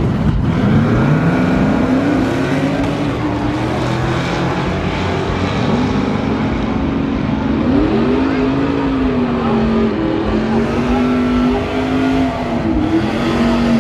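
Drag-racing pickup truck engines: one climbs steeply in pitch as a truck accelerates away early on, then an engine revs up and down repeatedly in the second half as a truck does a tire-smoking burnout at the start line.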